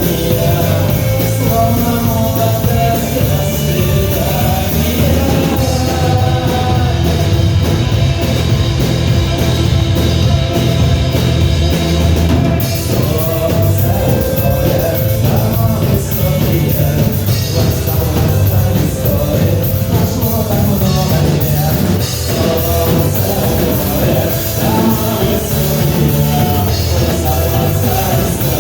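Rock song with drums, bass and guitars, and a singing voice.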